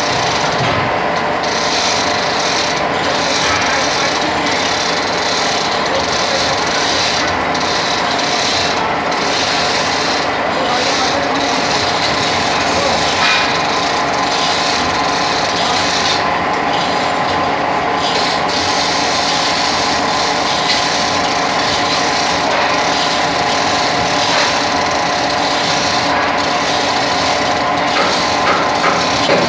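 Manual chain hoists being hauled by hand: chains rattling and ratcheting through the hoist blocks without pause, over a faint steady machine hum.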